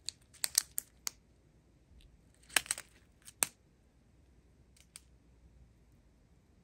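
Small plastic bags of diamond-painting drills being handled, giving short crinkling clicks: a quick run in the first second, a louder cluster around two and a half to three and a half seconds, and a couple of faint ones near five seconds.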